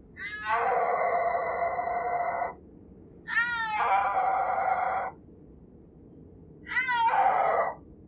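Snow leopard yowling: three long, loud calls, each opening with a falling cry and then held. The first two last about two seconds each and the third about one.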